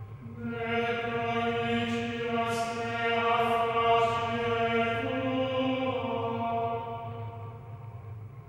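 Background music: slow chanted singing, long held vocal notes with a few soft sibilant consonants over a low steady drone. The note steps up in pitch about halfway through and fades near the end.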